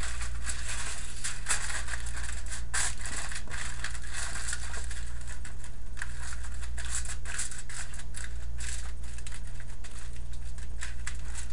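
Aluminium foil crinkling and crackling in irregular crisp bursts as it is pressed and folded over a cookie sheet, over a steady low hum.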